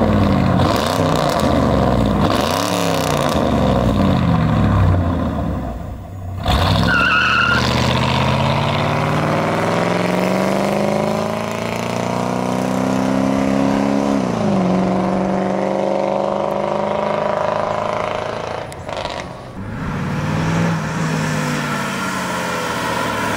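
1989 Mercury Grand Marquis's 5.0-litre V8 through a new dual exhaust, accelerating hard in several short takes. The engine note climbs, drops sharply at an upshift about 14 seconds in, then climbs again. A brief high chirp sounds about 7 seconds in.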